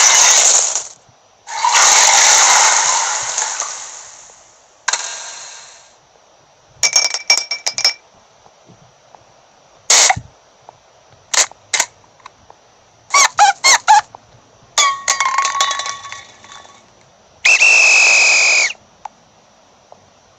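A run of short stock video sound effects played one after another, about eight or nine in all, each lasting a second or so with brief silences between. The first few are noisy rushing sounds, one fading out slowly; the later ones are sharp clicks and quick pitched blips.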